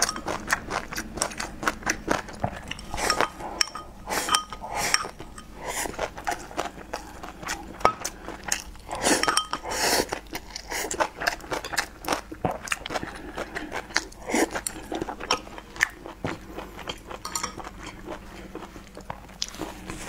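Close-miked eating: slurping leafy greens and broth from a bowl with chopsticks and chewing, heard as many irregular sharp clicks and short wet smacks. The sounds thin out near the end.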